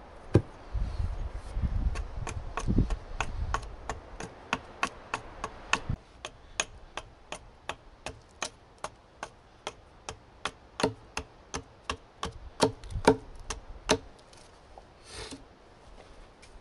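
Small axe chopping along a green aspen branch in quick, light strikes, about two to three a second, taking wood off the bottom of a throw stick; the strikes stop about 14 seconds in, followed by a short rustle.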